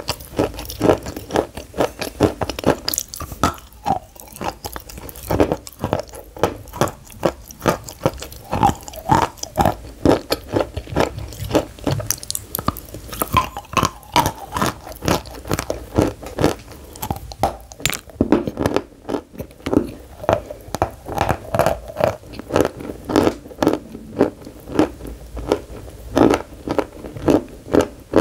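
Biting and chewing a flat bar of white chalk: sharp crunches as pieces snap off, then steady crunching chews at about two to three a second.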